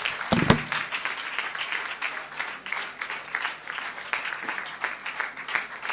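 Audience applauding: dense, steady clapping from a large crowd, with a single thump about half a second in.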